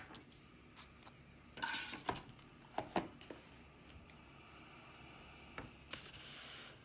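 Oracle cards being handled and set down on a wooden table: a few soft taps and clicks with brief rustles, spread irregularly.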